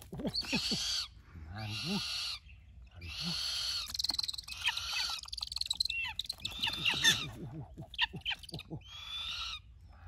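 A bird giving a series of harsh, hissing screeches, each about a second long, with short gaps between them.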